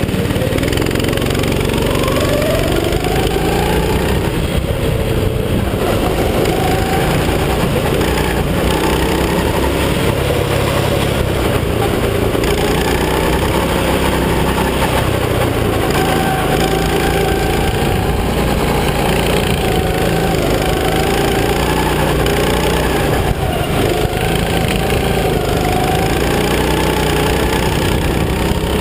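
Go-kart engine running hard on board the kart, its pitch repeatedly rising and falling as the throttle is opened and closed through the corners.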